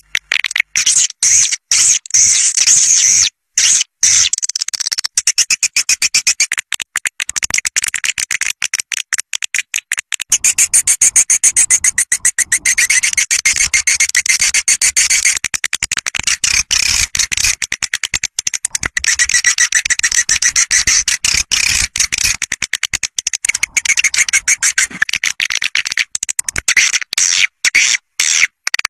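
Swiftlet caller sound: a loud, dense stream of rapid high-pitched chirps and twitters from swiftlets, many per second with brief breaks, the kind of call played to lure swiftlet flocks to nest houses.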